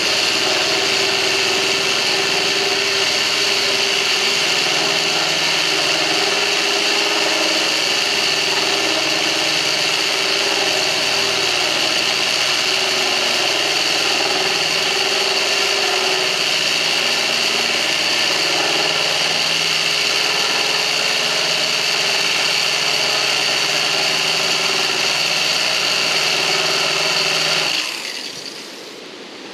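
Corded DeWalt electric drill running at a steady speed as its bit grinds a hole through aquarium glass, with a steady high whine. The drill stops about a second and a half before the end.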